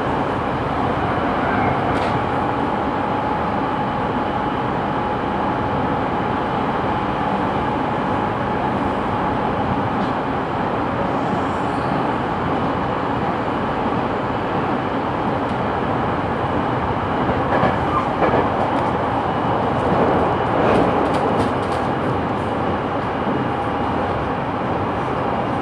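Running noise inside the motor car (MoHa 209) of a JR 209-series electric train at speed: a steady rumble of wheels on rail under a steady traction-motor whine. A run of clicks from the wheels comes about two-thirds of the way through.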